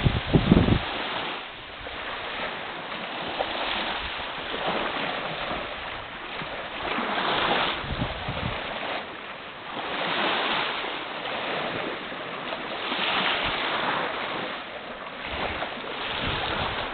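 Small waves lapping and washing in at the shoreline, swelling every two to three seconds, with wind rumbling on the microphone. The loudest moment is a low blast of wind on the microphone right at the start.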